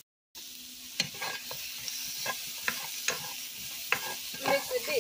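Brussels sprouts, broccoli and mushrooms sizzling in a frying pan while being stirred, the utensil scraping and clicking against the pan every half second to a second. The sound drops out for a moment at the very start.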